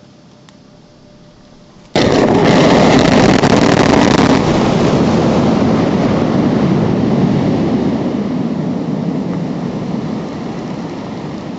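Mass blast in an open-pit coal mine going off about two seconds in: a sudden loud bang, then a long, heavy rumble that slowly fades over several seconds.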